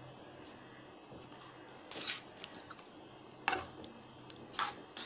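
Metal spatula stirring thick wheat halwa in a pan, with ghee separating out of it: soft squishing of the paste and a few short scrapes of the spatula against the pan, the sharpest about three and a half and four and a half seconds in.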